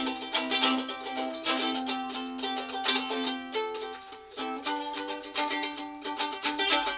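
Ukulele being strummed in a steady rhythm of chords, with a brief pause in the strumming about four seconds in.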